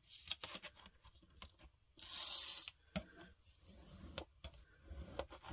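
Bone folder and kraft cardboard rubbing along a ruler's edge as a crease is marked and folded: one short scraping rub about two seconds in, with a few light clicks and taps of the ruler and folder on the cutting mat.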